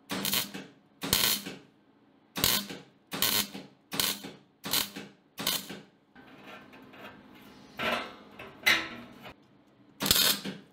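MIG welder arc crackling in about ten short bursts, roughly one a second, as a steel exhaust downpipe joint is stitch-welded with short trigger pulls. A faint low hum runs between the bursts.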